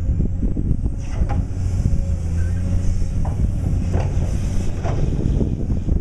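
Caterpillar excavator's diesel engine running steadily, with a few short clanks scattered through it.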